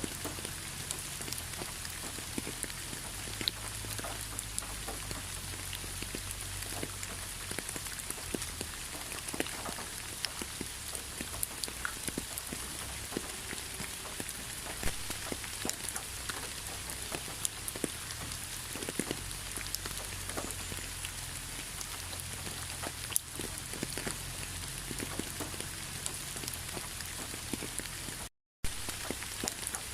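Steady rain falling, with many separate drop hits heard over an even hiss. The sound cuts out completely for a split second near the end.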